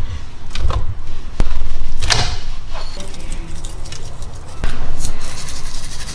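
Cooking at a stovetop: a few sharp knocks and clatters of a frying pan, the loudest about two seconds in, then a hiss of chicken breasts frying in oil in the second half.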